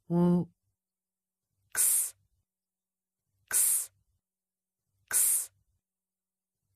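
A woman sounding isolated letter sounds: one short voiced 'wuh' for W at the start, then the hissing /ks/ sound of X, said alone three times about a second and a half apart.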